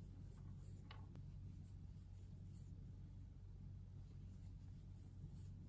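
Faint soft rustling and light ticks of a crochet hook pulling yarn through stitches, over a steady low hum.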